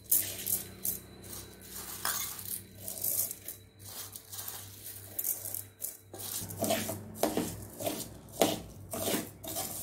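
Raw rice grains rattling into a dry metal kadai as they are tipped in, then a perforated steel ladle stirring the dry rice and scraping the pan, about two strokes a second near the end: rice being dry-roasted.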